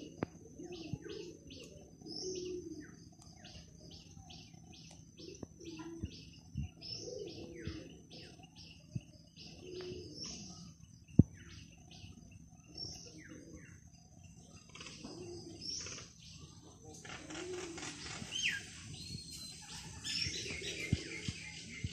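Small birds chirping in quick runs of short high calls, with a dove cooing low at intervals underneath. A single sharp click about eleven seconds in, and the chirping grows busier near the end.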